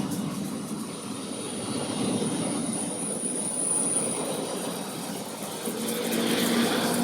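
A train running past: a steady rumble that swells and fades, with a thin high whine through the middle.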